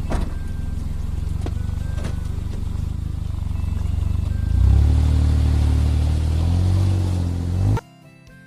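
An engine running steadily, stepping up in pitch and loudness about four and a half seconds in, then cut off abruptly near the end.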